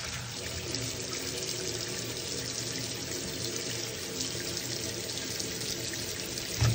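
Kitchen tap running steadily into a stainless-steel sink, the water splashing over a plastic colander and roasted red peppers being peeled under it. There is a short thump near the end.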